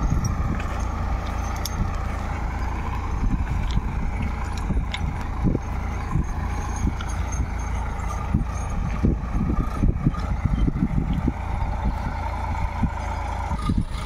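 Sonalika tractor's diesel engine running steadily under load as it pulls a tine cultivator through dry soil.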